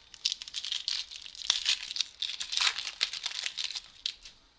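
A foil trading-card pack wrapper being torn open and crinkled by hand, a dense crackling that runs for about four seconds.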